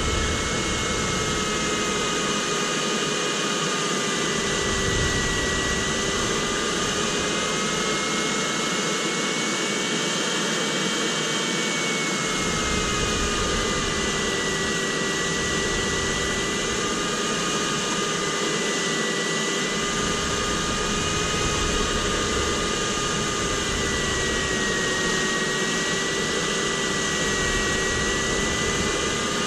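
Steady rush of air around a sailplane's cockpit canopy in flight, with low buffeting that comes and goes. A continuous tone slowly wavers up and down in pitch under the rush.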